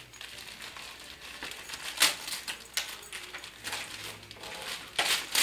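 Wrapping paper being ripped and crumpled off a tall gift box in short bursts, the sharpest rip about two seconds in and another near the end.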